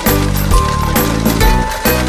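Background music with a steady beat of about two beats a second and held notes over a deep bass.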